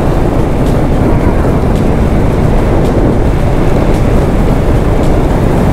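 Royal Enfield Hunter 350's single-cylinder engine running at a steady highway cruise, under heavy wind rush on the microphone.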